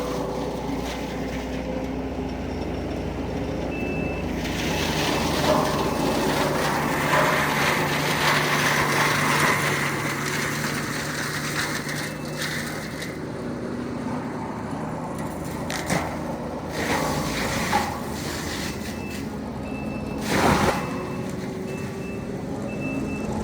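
Heavy equipment engine running steadily, with a reversing alarm beeping once early on and then repeatedly through the last few seconds.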